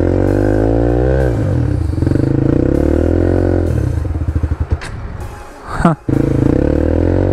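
Dirt bike's four-stroke single-cylinder engine running and blipping up in revs, then stumbling and falling away about four seconds in before catching and running steadily again near the end.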